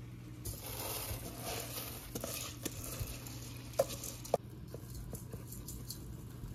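Cooked white rice tipped from a pot into a stainless pot of pesto liquid: a rushing patter of grains and liquid for a few seconds, then two sharp knocks of the pot against the rim, followed by a few light ticks.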